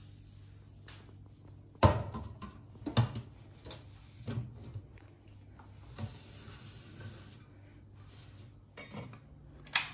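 Kitchenware clattering: dishes, pots and utensils knocked and set down in a string of sharp clinks and knocks, the loudest about two seconds in and another near the end.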